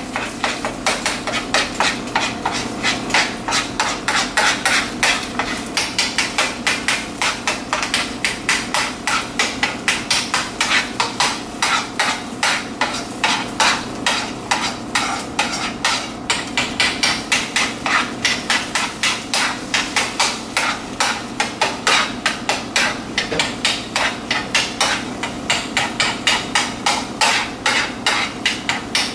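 Metal fork scraping and tapping against a nonstick frying pan in quick repeated strokes, about three a second, scrambling eggs. A steady low hum runs underneath.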